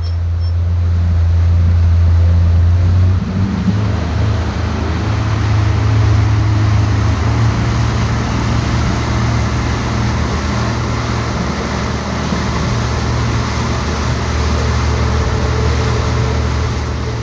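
Outboard motor running a boat at speed, with the rush of water and wind over it; about three seconds in the engine note steps up and then holds steady.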